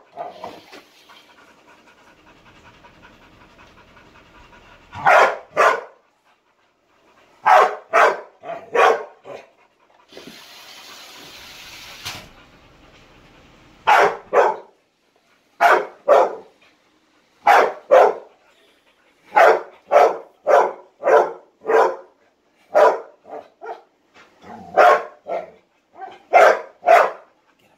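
A dog barking again and again, in single barks and quick runs of two to four. A brief steady whirring comes about ten seconds in.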